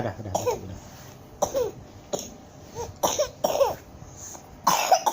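A small child coughing in about half a dozen short, separate bursts, a longer and louder one near the end, after laughing so hard that it brought on the cough.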